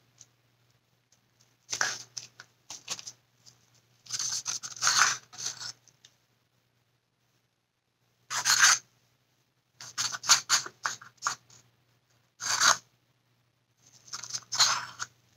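A stir stick scraping against the inside and rim of a small plastic cup in about six short bursts, scooping out paint to drip onto a coaster.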